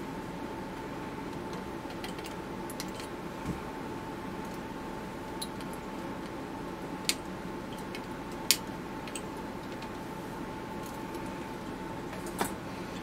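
Flush cutters snipping off excess resistor leads on a circuit board: several sharp, separate snips a second or more apart, the loudest near the middle and near the end.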